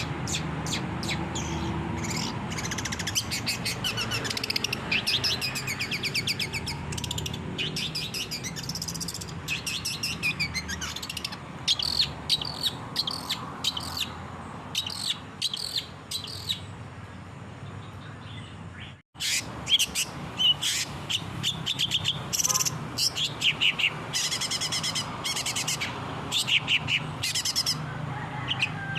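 Long-tailed shrike (cendet) singing energetically: a fast, chattering run of rapid high chirps and trills. The sound cuts out suddenly for a moment about two-thirds of the way through, then the song carries on.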